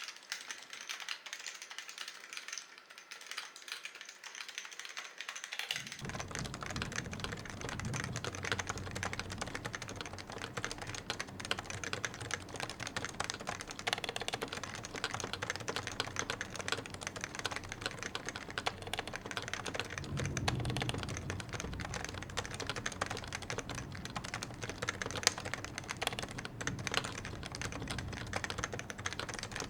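Continuous fast typing on a Topre Realforce 101 keyboard: aged, variable-weight Topre rubber-dome switches on a steel plate, under PBT and ABS keycaps, giving a dense run of thocky key strokes. A low rumble joins underneath after about six seconds and swells briefly later on.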